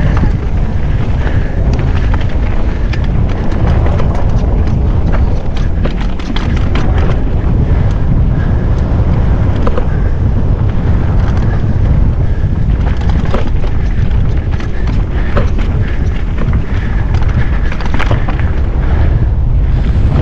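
A mountain bike descending a rough enduro trail: heavy wind rumble on the microphone, with frequent sharp clicks and knocks from the bike rattling over the ground.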